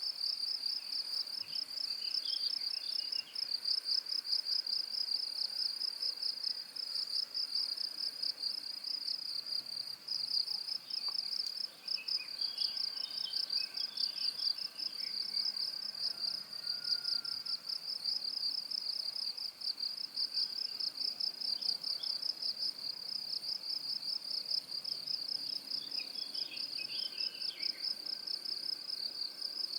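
Crickets trilling steadily in one high, rapidly pulsing band. A few faint scattered chirps sit lower down.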